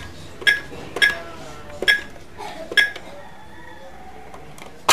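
Toy electronic cash register keypad beeping under a child's finger: four short electronic beeps with plastic key clicks, about one every half second to a second, then a pause. Right at the very end a louder burst begins.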